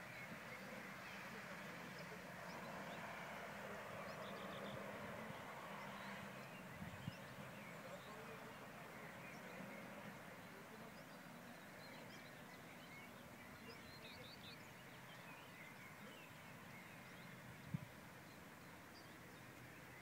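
Faint birdsong, many small scattered chirps over a steady distant hiss-like background, with two brief knocks, one about a third of the way in and one near the end.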